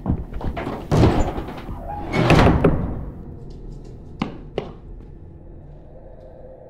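Two heavy banging crashes, like a door slammed and rattled, about a second apart. Two sharp knocks follow about half a second apart, and a low steady hum comes in near the end.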